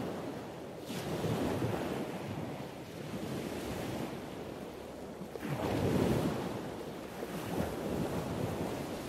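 Wet Technologies slurry blast nozzles spraying water and abrasive slurry inside an enclosed blast cabinet: a steady rushing hiss that swells louder about a second in and again around six seconds in.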